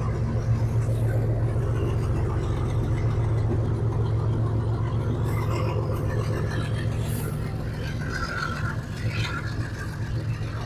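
Diesel freight locomotive hauling container wagons past: a steady low engine drone over the rumble of the wagons on the track. The drone eases off in the second half as the locomotive draws away.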